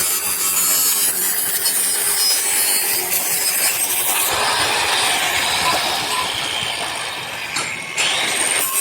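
Angle grinder grinding the steel of a rectangular-pipe gate frame: a steady, harsh grinding that eases briefly near the end.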